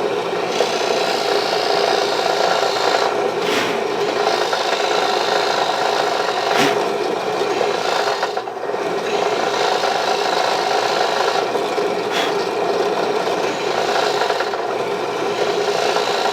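Electric drill running steadily with its bit grinding into wood, a continuous rasping with a few brief dips. The bit is dull and rubs more than it cuts.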